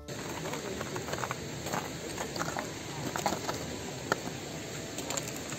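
Steady rushing outdoor noise, from wind or a glacial stream, with scattered crunches and clicks of trekkers' footsteps on rocky ground.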